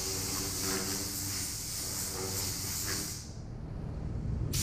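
Compressed air hissing steadily from a handheld air blow gun aimed at steel wheel rims, over a steady low hum. The air cuts off about three seconds in.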